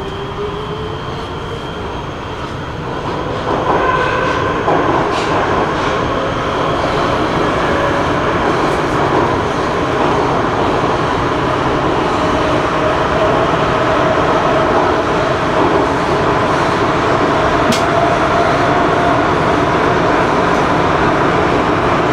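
Prague metro line C train pulling away from a station and picking up speed into the tunnel, heard from inside the car: steady wheel and track rumble with a motor whine that rises slowly in pitch. It gets louder a few seconds in, and there is a single sharp click about three quarters of the way through.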